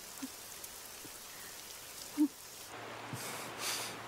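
Steady rain falling, heard as an even hiss, with one short low sound about two seconds in. Near the end the rain gives way to a different background, with two breathy puffs.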